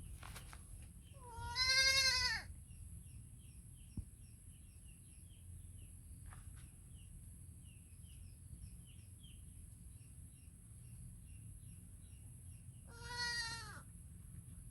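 Young goat kid bleating twice, two long, wavering, high-pitched calls about eleven seconds apart, calling for its mother. Between the bleats comes a faint, quick run of short high chirps.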